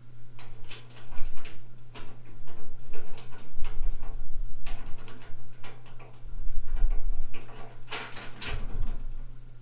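Repeated metal clicks, knocks and clatter of a gas lid shock being fitted and screwed onto the steel lid of a tool cart, over a steady low hum.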